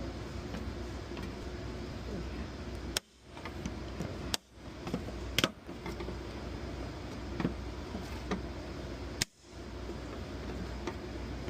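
Steady shop background noise with a few sharp clicks and knocks of hand tools working on the car's small 10 mm fasteners and rear trim.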